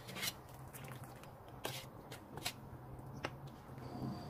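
A metal skimming spoon and strainer clicking and scraping against a stainless steel pot several times as the scum is skimmed off boiling meat broth, over a low steady hum.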